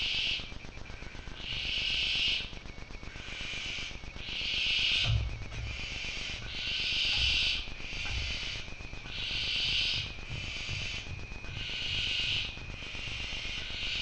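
Barn owl owlets' rasping hiss calls, the 'snoring' food-begging call of nestlings. Each hiss lasts about a second and repeats about every two to three seconds, with faint low bumps in the second half.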